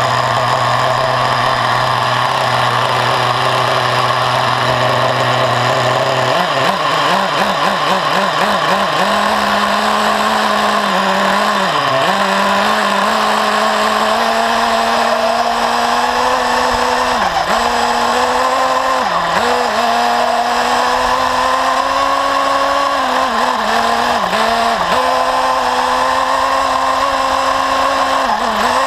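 Two-stroke nitro glow engine of an XTM Rail RC buggy, heard close-up from an onboard camera. It idles steadily at first, is blipped up and down rapidly about six seconds in, then runs at a higher steady pitch with repeated brief dips as the throttle is eased off.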